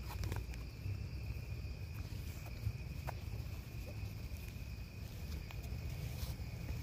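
Crickets trilling steadily over a low rumble, with a few faint clicks and scuffles as two dogs wrestle on artificial turf.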